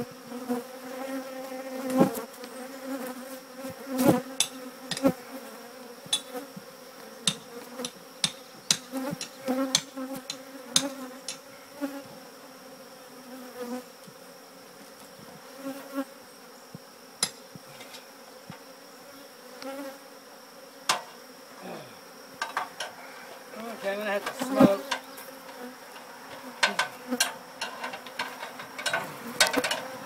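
A colony of honeybees, disturbed by the opening of their hive in a wall, buzzing in a steady drone. Sharp knocks and clicks come throughout, the loudest about two and four seconds in and again near the end.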